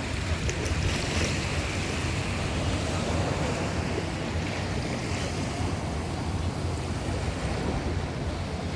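Sea waves washing in, a steady rush that swells about a second in and again around five seconds, with wind rumbling on the microphone.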